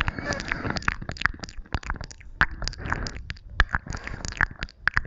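ASMR mouth sounds close to the microphone: irregular wet clicks and smacks of lips and tongue, several a second, over a low rumble.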